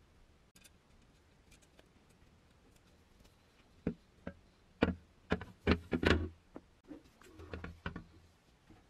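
Handling noise from a metal helmet: after a quiet start, a run of sharp knocks and clinks begins about four seconds in as it is turned over in gloved hands and set down on a wooden workbench. The knocks stop shortly before the end.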